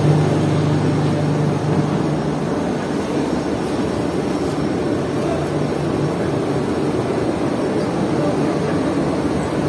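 Steady roar of shipboard noise on the open deck of a vessel at sea: an even rush under a machinery hum that fades out about two seconds in.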